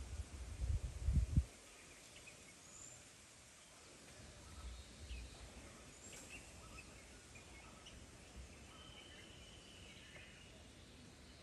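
Quiet riverside ambience with scattered short bird chirps and one longer held call near the end. Low rumbling thumps run through the first second and a half.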